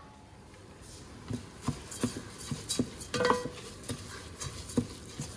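A utensil stirring brown rice in a pot, with irregular scrapes and clinks against the pot a couple of times a second, as the rice is toasted before water is added for congee.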